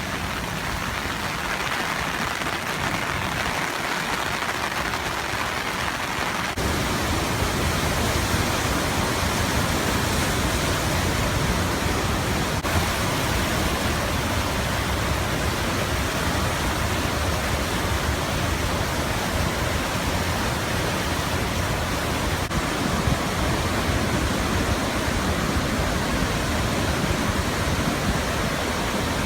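Floodwater rushing through a swollen concrete river channel after torrential rain, a steady roar of water. It grows louder and deeper about six seconds in.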